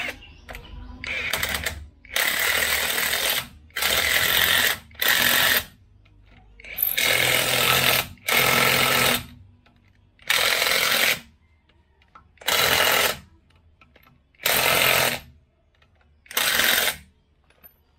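Cordless impact wrench hammering in about ten short bursts, each around a second long with brief pauses between, running the lug nuts onto a car wheel and tightening them down.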